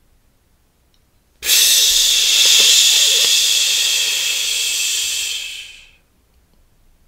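A woman blowing a breath out hard and fast through her mouth, the forceful exhale of a breathing exercise. A loud rushing hiss starts suddenly about one and a half seconds in, lasts about four seconds and tails off.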